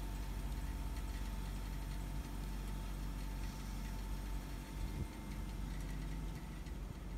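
A car engine idling steadily, left running to warm up in the cold.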